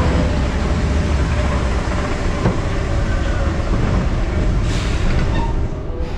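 Expedition Everest roller coaster train rolling along its track at speed: a steady, loud rumble with wind buffeting the ride-mounted camera's microphone. It eases slightly near the end as the train enters the station.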